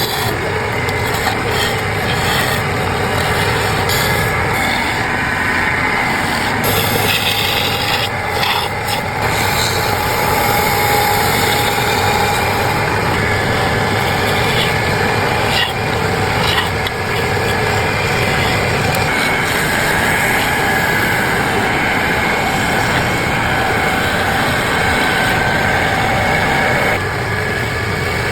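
A tool working continuously against wood, a steady rough rasping as the log is carved and shaped.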